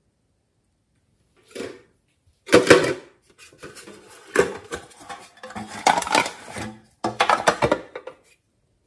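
Blue printed tin box handled up close: its thin sheet metal clanks and rattles in a few loud bursts, starting about a second and a half in.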